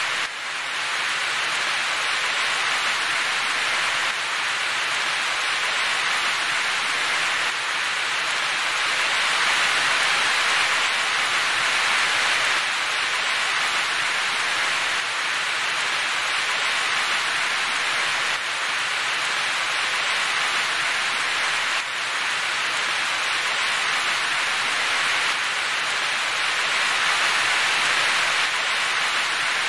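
Heavy rain falling, a steady even hiss with no thunder.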